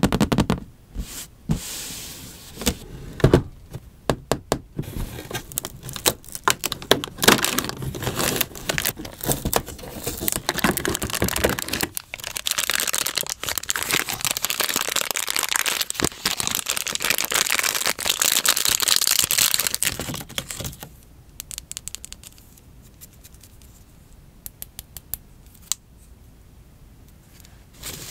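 Long fingernails tapping and scratching on a cardboard advent calendar, then a crinkly red plastic wrapper being handled and unwrapped, with dense crinkling from about six seconds in until about twenty. Light scattered taps on the cardboard follow near the end.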